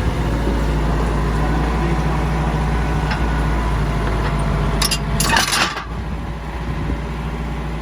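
Bulldozer's diesel engine running steadily, with a short burst of metallic clanking about five seconds in.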